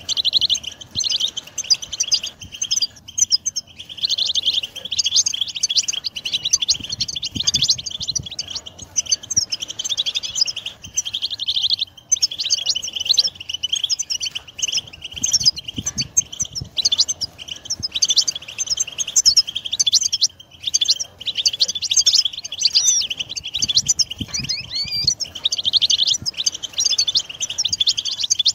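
European goldfinch song: fast, continuous, liquid twittering and trills, with a couple of short pauses.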